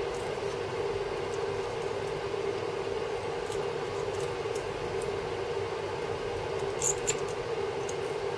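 Copper desoldering braid under a hot soldering iron squeaking steadily as it is slid back and forth over circuit-board pads, cleaning them. The squeak is a sign of good friction between braid and pad, with a couple of faint ticks about seven seconds in.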